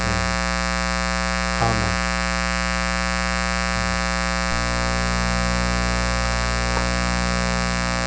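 Steady electrical mains buzz with a dense series of even overtones, its tone changing slightly about halfway through.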